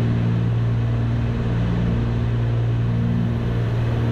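Cessna 310's twin piston engines and propellers heard from inside the cockpit in cruise flight: a steady low drone.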